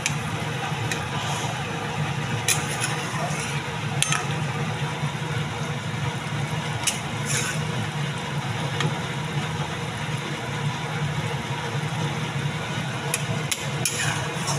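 Curry simmering in a kadai on a gas stove: a steady noisy hiss with a low hum under it. A metal spatula gives a few sharp clicks against the pan, more of them near the end.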